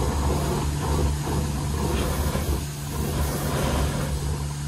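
A vehicle engine running steadily: a low, even hum.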